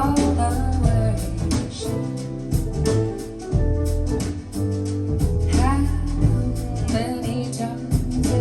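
Female-vocal jazz track played back through KEF LS50 Meta speakers with two subwoofers: a singer over heavy bass and a steady drum beat.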